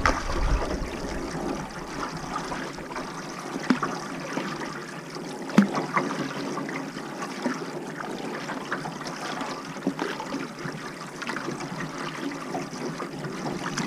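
Water trickling and lapping, with scattered small drips and splashes.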